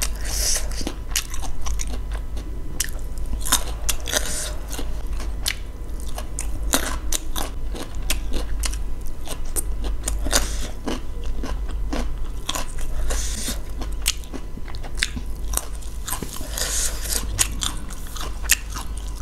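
Close-miked eating of cheesy 2x spicy Buldak ramen noodles: steady chewing with many sharp, wet mouth clicks and smacks, and a few brief hissy slurps.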